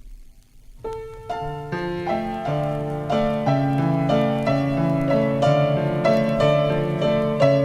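After a brief quiet gap, a piano starts about a second in, playing the instrumental introduction of a song as a flowing pattern of struck notes, several sounding together.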